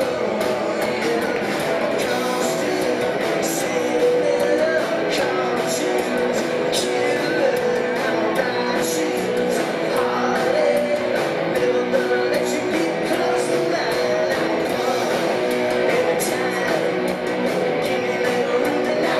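Live rock band playing loud: electric guitar and drums, with a long steady note held over regular cymbal hits.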